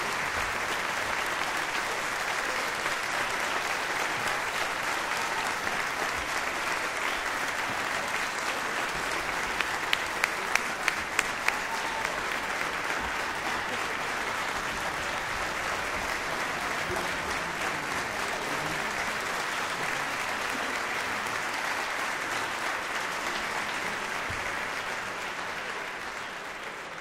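Concert audience applauding, a dense, steady clapping. About ten seconds in, six sharp, louder claps close by stand out in quick succession, and the applause fades out near the end.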